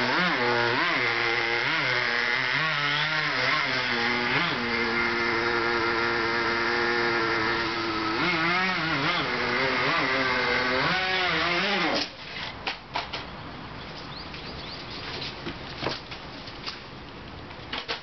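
Two-speed .18 nitro RC buggy engine revving up and down in quick blips, holding a steady high pitch for a few seconds in the middle, then cutting off suddenly about two-thirds of the way through; a few light knocks follow.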